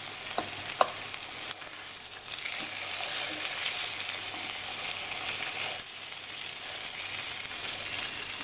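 Veal ossobuco sizzling steadily as it browns in butter in a frying pan, the hiss swelling for a few seconds in the middle. A few light clicks of a metal fork against the pan come in the first couple of seconds.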